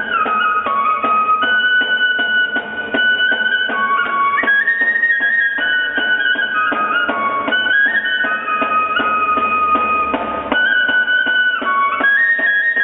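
Traditional Peruvian flute playing a high melody of held and stepped notes over a steady beat of percussion strokes from drum and tambourine.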